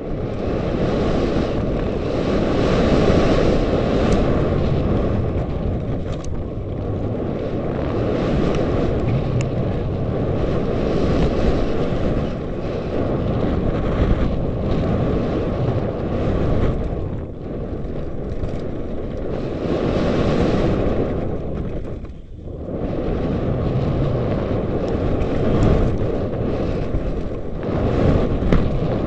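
Wind buffeting a helmet-mounted camera's microphone as a downhill mountain bike descends at high speed, mixed with the rattle of tyres and bike over a rocky dirt trail. The noise swells and eases with speed, with a brief lull about three quarters of the way through.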